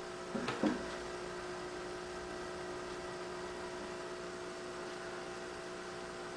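Steady electrical hum of an aquarium filter motor, with a brief bump about half a second in.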